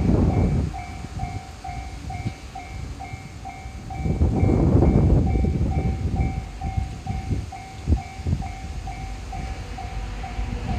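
Japanese railroad crossing bell dinging steadily, about three times a second, while a train passes: its rumble swells about four seconds in, followed by sharp wheel clacks over rail joints.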